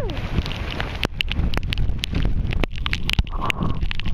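Wind buffeting the microphone in a rain squall, with a dense irregular crackle of raindrops striking the sea and the camera.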